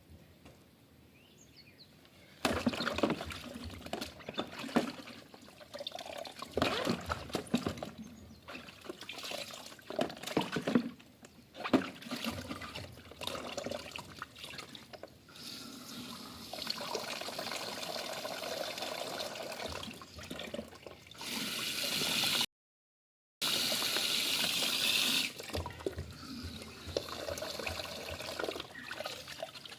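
Water splashing as vacuum cleaner parts are washed and rinsed by hand, with irregular knocks of the parts being handled. Later comes a steadier stretch of running or pouring water, briefly cut off about two-thirds of the way through.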